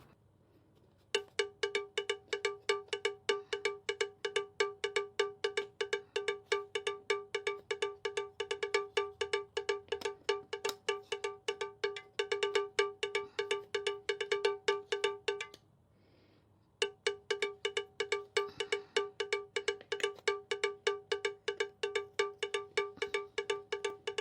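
Background music of a bright, bell-like percussion note struck over and over at one pitch, about four strikes a second, with a short break about fifteen seconds in.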